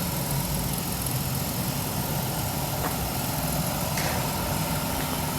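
Holden VZ Commodore's 3.6-litre V6 petrol engine idling steadily, with a couple of faint ticks.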